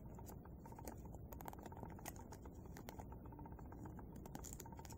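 Faint crackling and clicking of a small square of brown paper being handled and creased by fingers while folding origami, a scatter of short irregular ticks.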